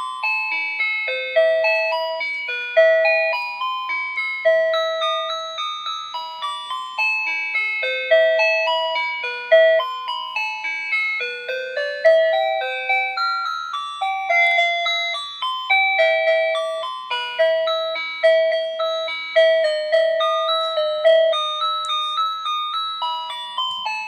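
Talking calculator-alarm clock's built-in speaker playing its electronic melody, song number 2: a tune of short, bright beeping notes, several a second.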